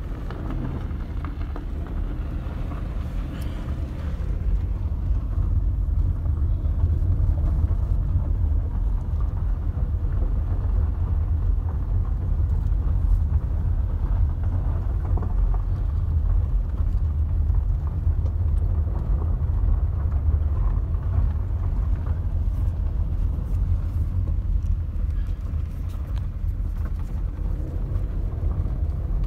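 Steady low rumble of a car driving along a dirt road, heard from inside the cabin: tyre and engine noise, with a few faint ticks.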